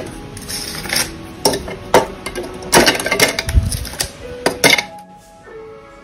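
Ice cubes dropped one after another into an Oster Ball mason blender jar, about eight sharp clinks and knocks over a few seconds, with background music.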